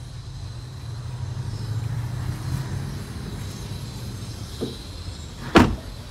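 A low steady hum, then the rear passenger door of a Lexus NX200t swung shut with a single loud thud about five and a half seconds in.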